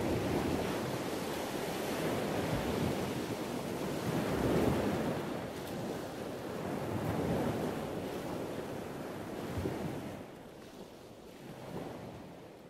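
Ocean surf: waves washing onto a shore. The sound swells and ebbs every two to three seconds and dies away near the end.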